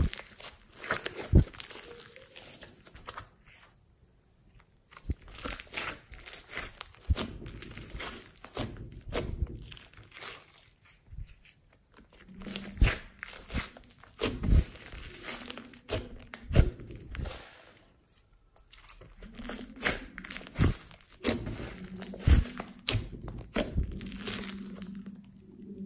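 Hands kneading, stretching and pressing a large mass of glossy slime mixed with floam beads: irregular sticky crackles, pops and squelches, with a couple of short pauses.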